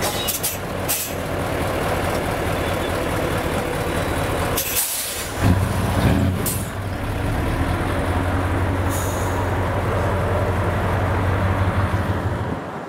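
Heavy decorated truck's diesel engine running close by, with several short air-brake hisses near the start and around five to six seconds in. The engine gets louder about halfway and cuts off abruptly just before the end.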